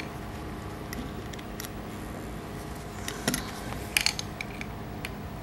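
Small metallic clicks and taps of a screwdriver working the connecting-rod cap screws on a Maytag 72 twin crankshaft, a few scattered ones with two sharper clicks in the second half, over a steady low hum.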